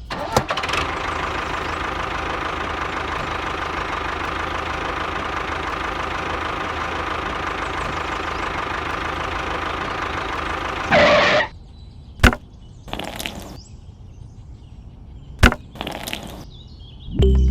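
A small motor runs steadily for about eleven seconds, then stops after a brief louder burst. A few sharp clicks and short handling noises follow.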